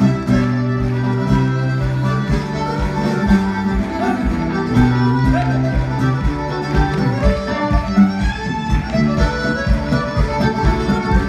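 Live Irish traditional dance tune played on fiddle and guitar, with a steady, regular beat.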